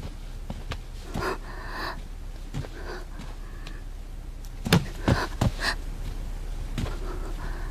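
A woman's pained gasps and ragged breathing, with a cluster of sharp, louder gasps about five seconds in.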